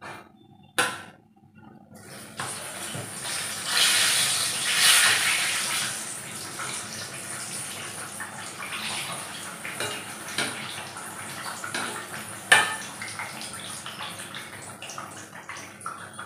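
Eggplant slices frying in hot oil in a steel kadai: a steady sizzle that starts about two seconds in and is loudest a couple of seconds later. A metal slotted ladle clinks against the pan now and then, sharply once near the end.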